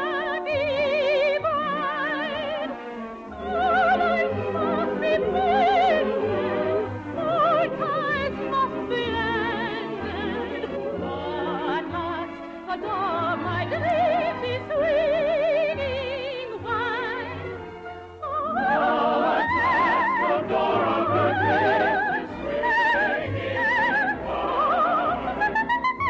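Operatic soprano singing with a wide vibrato over orchestral accompaniment. About 18 seconds in, after a brief dip, the voice swells louder and climbs higher.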